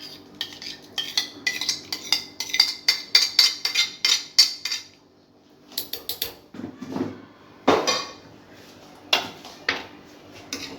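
A spoon stirring quickly, clinking rapidly against the side of a cooking vessel for about four seconds. After a short pause there are a few separate knocks and clatters of kitchen utensils.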